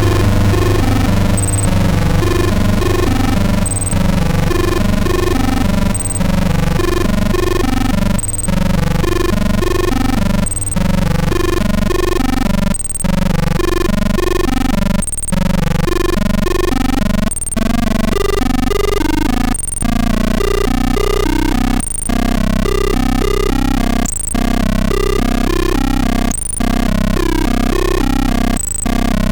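Live electronic noise music: a low synthesizer drone under a pulsing, stuttering texture, broken about every two seconds by a short gap and a high blip. About two-thirds of the way through, the bass drops to a lower note.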